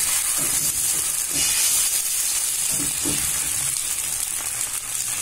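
Dosa batter sizzling on a hot tava as it is poured and spread with a ladle: a steady, high hiss.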